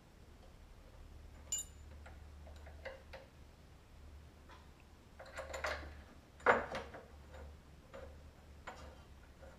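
Yamaha X-Max 250 front brake caliper being fitted back over the disc onto the fork: scattered small metallic clicks and taps, with one sharper knock about six and a half seconds in.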